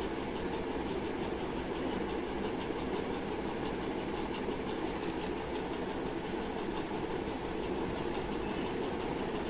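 A steady low mechanical rumble in the background, with faint scratching of a pencil drawn along a ruler on paper.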